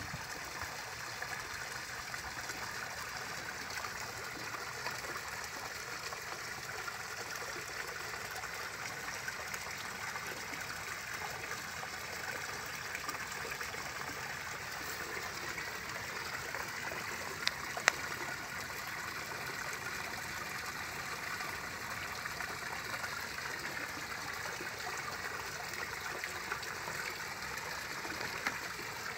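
Running water trickling steadily into a garden pond, with two short sharp clicks a little past halfway.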